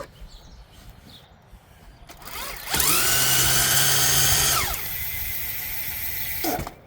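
CYC X1 Pro Gen 3 e-bike mid-drive motor spinning up under throttle with the rear wheel off the ground, in race mode. About two seconds in its whine rises and holds loud and steady for about two seconds, then drops to a quieter steady run before winding down and stopping near the end.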